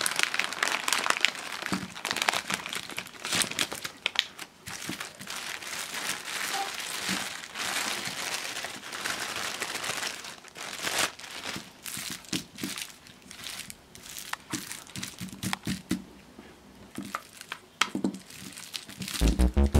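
Lollipop packaging crinkling and rustling in bursts as it is handled and opened, with some tearing. Background music with a steady beat starts just before the end.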